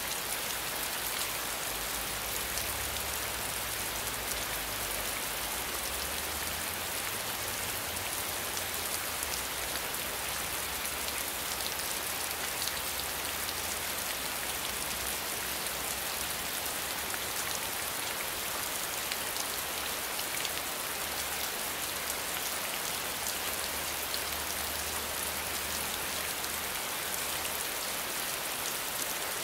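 Steady rain falling, with a dense spray of small drop splashes on a wet surface.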